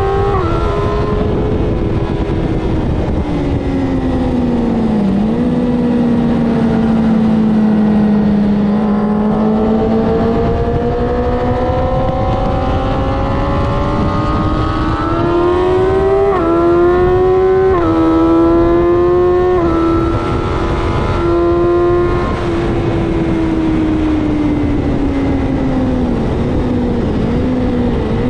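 Onboard sound of a BMW S1000RR's inline-four engine at track speed, with wind rushing past. The engine note falls as the bike slows about five seconds in, then climbs steadily. Between about sixteen and twenty seconds in it drops in pitch in several quick steps as the bike shifts up, and it falls away again as the bike slows near the end.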